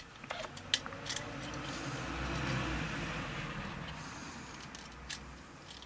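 A truck passing by: its rumble swells to a peak about halfway through, then fades away. A few sharp clicks of plastic toy joints being moved come near the start and again about five seconds in.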